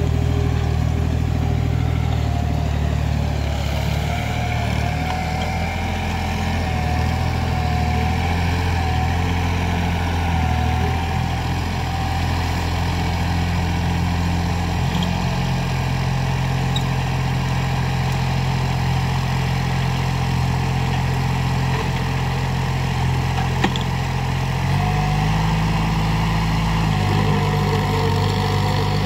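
Sonalika 20 hp mini tractor's diesel engine running steadily under load while it pulls a rotavator through the soil, with a higher whine over the engine note. About 25 seconds in, the engine note shifts in pitch.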